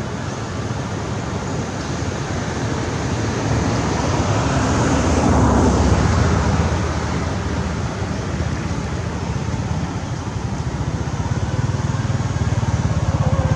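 A motor vehicle passing, its engine and tyre noise swelling to a peak about halfway through, then easing off. An engine's low, pulsing throb builds near the end.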